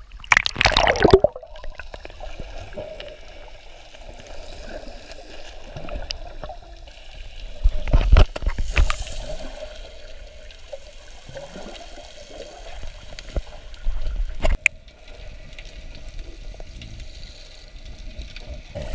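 Sea water sloshing and gurgling close to the microphone as a person wades and swims. There are louder splashes about a second in, around eight seconds, and near fourteen and a half seconds.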